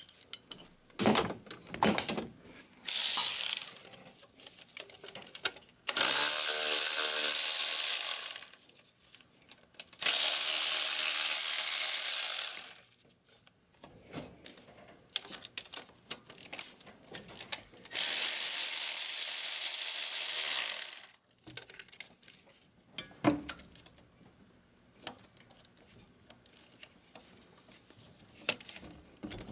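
A cordless electric ratchet runs in four bursts of about two to three seconds, spinning bolts loose. Small clicks and clinks of tools and parts come between the bursts.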